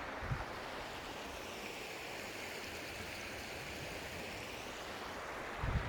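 Steady rush of running water from a mountain stream or waterfall, with a couple of brief low bumps on the microphone, one just after the start and one near the end.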